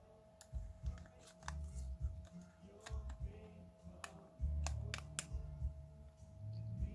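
Small sharp clicks and low handling bumps of hands and tools working on a Sony WM-EX85 cassette Walkman, with a quick cluster of clicks a little after halfway and a faint steady tone underneath.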